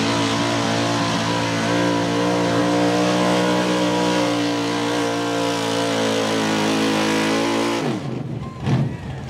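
Outlaw 4x4 pulling truck's engine running flat out under load, a steady high-revving note, then dropping sharply in pitch and level near the end as the throttle comes off.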